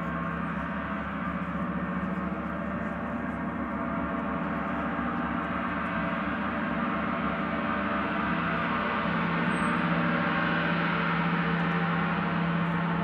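Large hammered suspended gong played with a mallet: a sustained, shimmering wash of many overlapping tones that swells louder in the second half.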